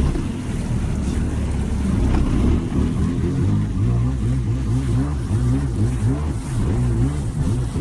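An engine running and revving, its pitch rising and falling again and again.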